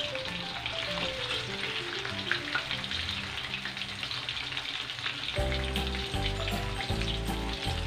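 Fish pieces shallow-frying in hot oil in a wok: a steady sizzle with small pops. Background music plays underneath, and a bass line comes in about five seconds in.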